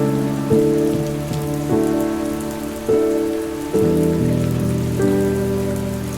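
Steady rain sound under soft background music. The music is sustained chords that change about every second, each change starting with a gentle attack.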